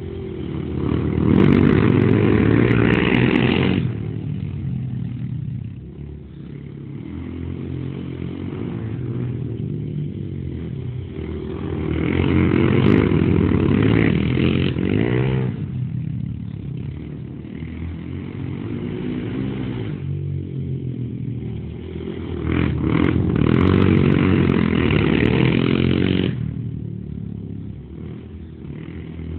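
A Kawasaki KFX400 and a Honda TRX400 sport quad racing laps on a dirt track, their four-stroke single-cylinder engines revving hard. The engines swell loud three times, about every ten seconds, as the quads pass close, and fall back between passes as they go round the far side.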